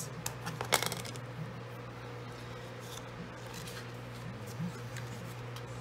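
Paper-crafting handling sounds: a brief plastic clatter about a second in as a scraper tool is set down on a cutting mat, then faint rustling and clicks of cardstock being picked up and folded, over a steady low hum.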